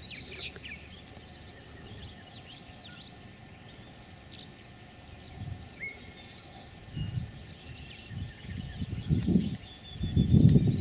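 Purple martins calling in the background: many short, quick chirps. Irregular low rumbles come in during the second half, loudest near the end, and a thin steady high tone sounds at the start and end.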